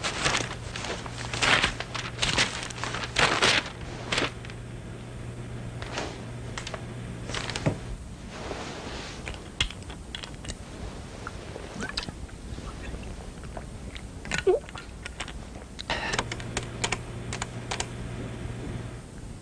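A quick, irregular series of sharp clicks and knocks, densest in the first few seconds and again near the end, over a low steady hum that stops about 8 seconds in and returns near the end.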